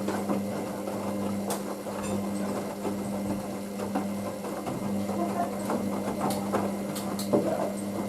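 Hoover DYN9144D3X front-loading washing machine in its 40 °C main wash with towels: the drum motor hums steadily, stops for about a second near the middle as the drum changes direction, then runs on, with scattered light clicks and knocks from the tumbling load.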